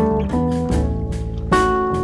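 Background music: plucked acoustic guitar playing a run of single notes and chords, a new note about every half second.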